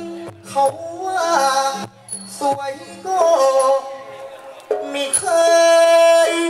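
A likay performer singing a Thai vocal melody into a microphone over amplified instrumental accompaniment, with ornamented, sliding phrases and a long held note near the end; a few sharp percussion strikes sound through it.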